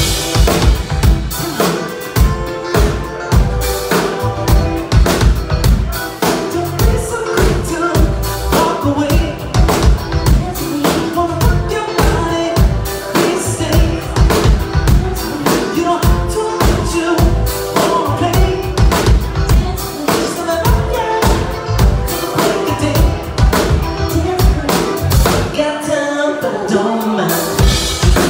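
Live band playing a pop song: a drum kit keeps a steady beat under keyboards and guitar, with singing over it. The bass and kick drum drop out for a moment about two seconds before the end, then come back.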